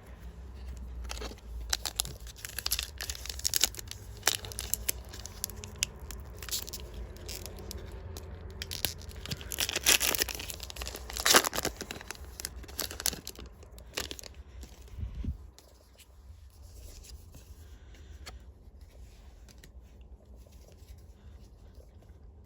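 Foil wrapper of a Disney Lorcana booster pack being torn open and crinkled, in bursts of crackling for about fifteen seconds, then only faint rustling.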